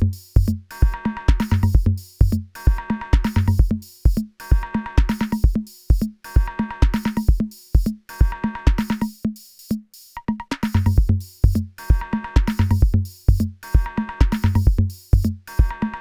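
Instrumental electronic music with a steady drum beat; the deep bass drops out for a stretch in the middle and returns about eleven seconds in.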